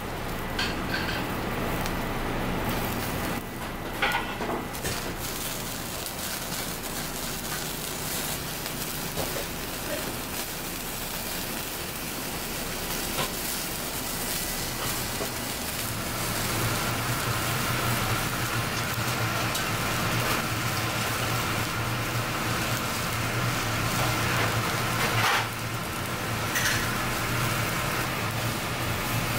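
Shellfish in scallop shells sizzling on a wire grill over hot coals, a steady crackling hiss, with a low steady hum underneath that grows stronger a little past halfway.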